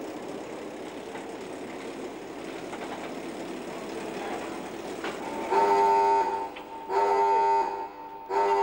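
Battery-electric shunting locomotive rolling with a steady running noise. About five and a half seconds in, a railway horn sounds three blasts of about a second each, each a chord of several tones.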